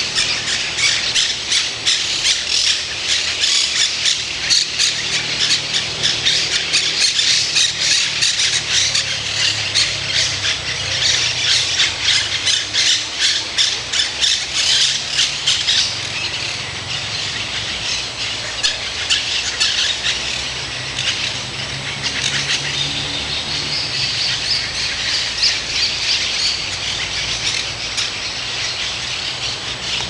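A dense chorus of many birds calling at once in rapid, overlapping short notes, thinning a little about halfway through.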